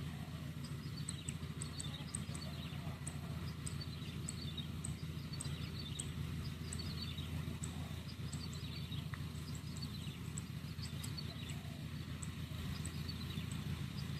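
Steady low drone of a rice combine harvester's engine working in the field. Over it, a bird's high falling call repeats about every second and a half, with quick high ticks in between.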